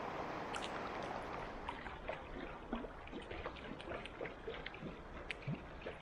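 Steady rush of river water, then from about two seconds in, irregular splashing and gurgling as a hooked trout thrashes at the surface close to the bank.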